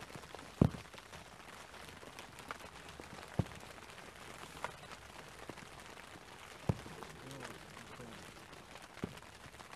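Steady light rain pattering close to the microphone, with five sharp taps of single heavy drops at uneven intervals. The loudest tap comes about half a second in.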